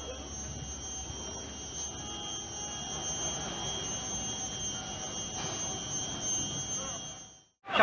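Steady high-pitched whine over a low, even road rumble from a car driving along, cutting off abruptly near the end.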